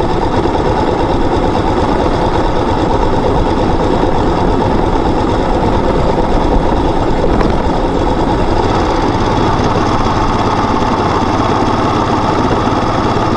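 Motorcycle engine running steadily at low, even revs, with no revving.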